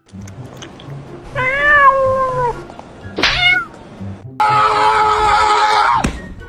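A domestic cat meowing: one long drawn-out meow, then a short one, with background music underneath.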